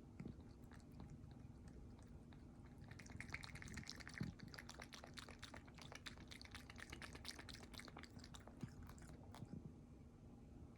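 An American Shorthair cat lapping water: a fast run of small, faint wet clicks starting about three seconds in and stopping shortly before the end.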